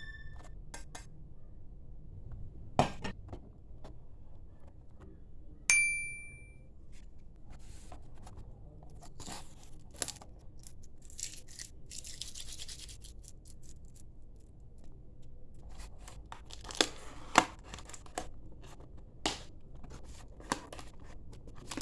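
Package being opened by hand: scattered clicks and taps of plastic and cardboard packaging, one short ringing clink about six seconds in, and a soft rustle or tear of wrapping a little past the middle.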